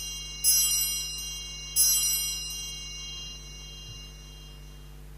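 Altar bell rung at the elevation of the host during the consecration: two bright struck rings about a second and a half apart, each with many high tones ringing on and dying away slowly, following a ring struck just before.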